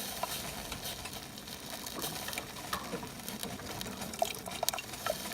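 DeLonghi combo's drip coffee maker brewing plain hot water: a steady hiss and gurgle with many small drips and spatters, the water falling without a filter basket in place. The coffee-maker side is heating and brewing normally after its fuse was replaced.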